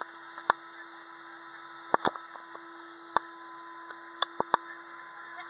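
Steady cabin hum of an Airbus A320 airliner taxiing, with one constant low tone running through it. Several sharp clicks and knocks cut across it, bunched around two seconds in and again just past four seconds.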